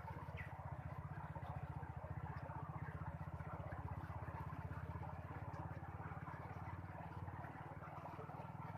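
A small engine running steadily, a fast, even low putter that stays level and eases off slightly near the end.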